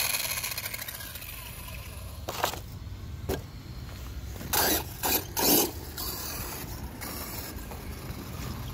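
Hobbystar 3650 3500KV brushless motor of a Redcat Volcano EPX RC truck on 3S, given several short throttle bursts that each whir up and cut off, the loudest three bunched together in the middle. The motor is heard winding down near the start. The truck is down to three-wheel drive from a broken dogbone.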